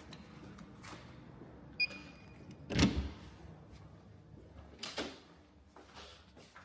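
A short electronic beep, then about a second later a door shutting with a loud thud, followed by a smaller knock a couple of seconds after.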